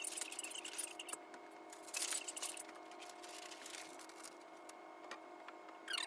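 Classroom audio played back at eight times speed. Quick rustling and clattering bursts come over a steady hum, and a squeaky sped-up voice comes in at the very end.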